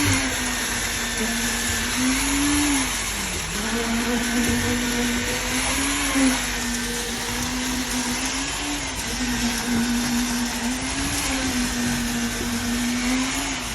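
Motor of concrete-pouring equipment running steadily with a humming whine, its pitch sagging briefly now and then as if loaded, then recovering.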